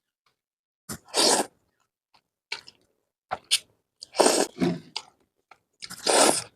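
A person eating spicy noodles close to the microphone: about five loud slurps and chewing noises, each under a second, with silent gaps between them.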